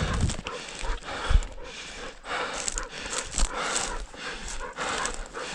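Footsteps crunching through dry grass and brush, with heavy breathing close to the microphone.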